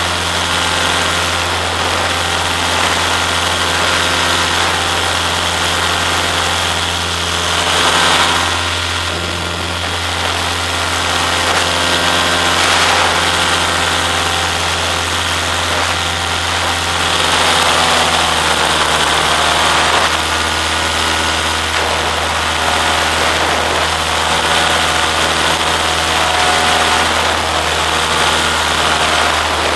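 Small aircraft engine running steadily in flight, with a rush of air over it. The engine note shifts slightly about halfway through.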